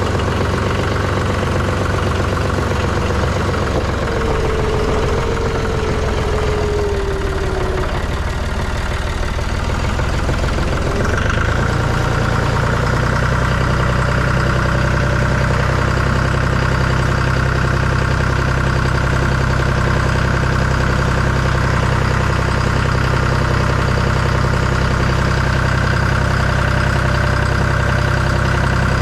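Vehicle engine running steadily; a whine drops in pitch a few seconds in, and about eleven seconds in the engine settles to a higher, even speed.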